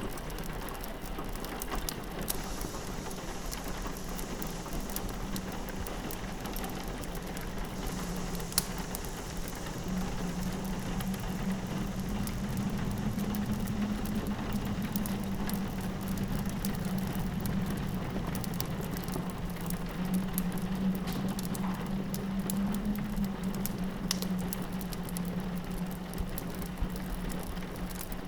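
Rain pattering steadily on a window, mixed with the small pops and crackles of a wood fire and a low, steady wind drone.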